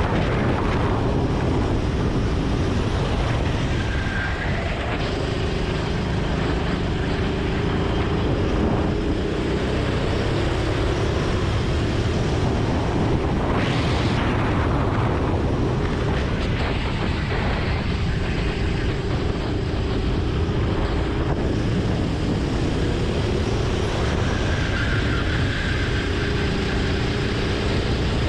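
Go-kart engine running at speed, its note rising and falling with the throttle, under a steady rush of noise.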